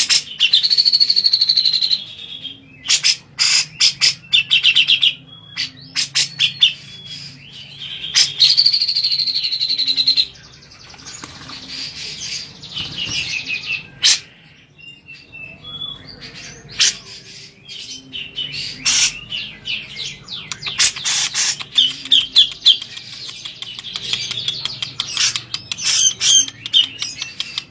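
Cucak jenggot (bearded bulbul) calling in a loud, varied chatter of sharp chirps. Two longer held calls come in the first ten seconds, and dense rapid runs of notes follow in the second half.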